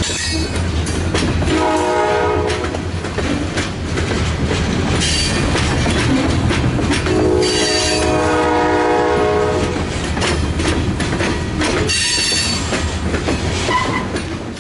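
Freight train of covered hopper cars passing close by, the steady rumble and clatter of wheels on rail, with short high hissing squeals from the wheels now and then. A locomotive horn sounds twice, once briefly and once longer, from the head end of the train.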